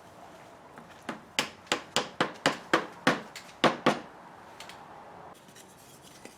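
A hammer tapping about ten times in quick succession, roughly three taps a second, ending about four seconds in, consistent with driving soaked chair cane into the seat groove.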